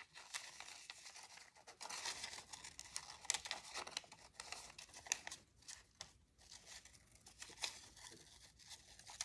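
Small scissors snipping through thin tracing paper in short, irregular cuts, with the paper rustling and crinkling as it is turned.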